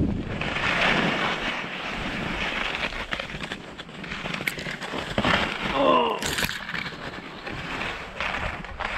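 Skis hissing and scraping over hard, crusty snow on a descent through trees, with wind noise on the microphone. Near the middle comes a short wavering vocal sound, the loudest moment, followed at once by a sharp brushing burst.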